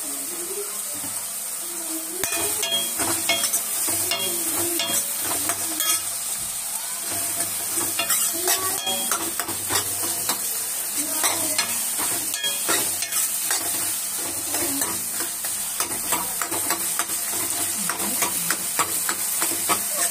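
Chopped tomatoes, onions and green chillies sizzling in oil in a metal kadai as they soften. From about two seconds in, a steel ladle stirs them and repeatedly scrapes against the pan.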